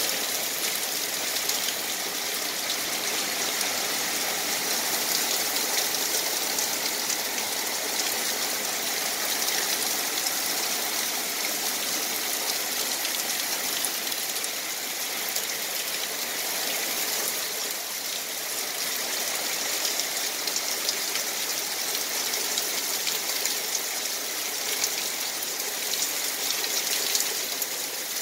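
Heavy rain pouring down steadily, a dense even hiss.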